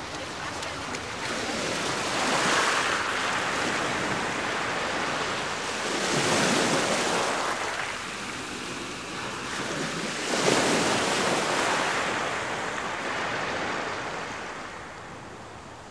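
Rushing wind noise buffeting the microphone. It swells up and dies away three times, about four seconds apart, then fades near the end.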